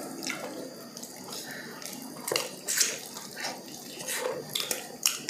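Close-up wet eating sounds: irregular chewing and lip smacks, with saucy pork rib meat being pulled apart by hand.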